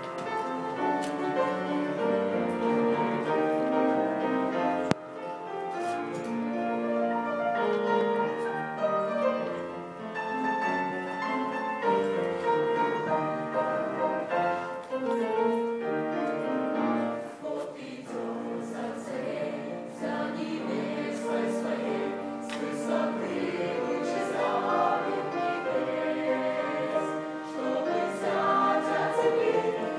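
A small mixed choir of men's and women's voices singing in harmony, in held chords that change slowly.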